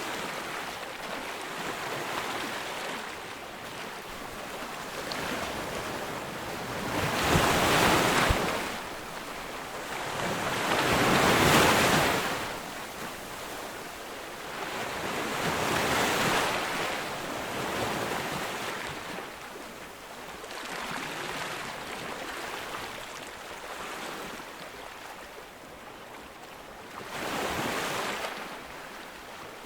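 Ocean surf breaking on a beach: a steady wash of water with waves crashing in swells every few seconds, the loudest about a third of the way in and again near the end.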